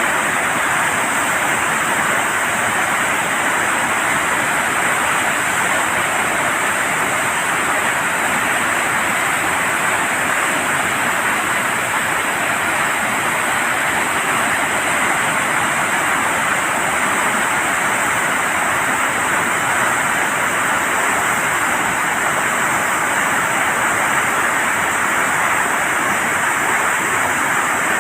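Steady rush of water pouring through a dam's opened flood gates during a flood alert.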